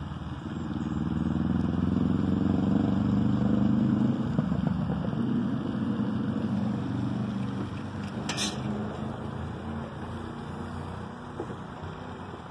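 A motor vehicle's engine going by: it swells over the first two seconds, is loudest for a couple of seconds, then slowly fades away. A brief hiss about eight seconds in.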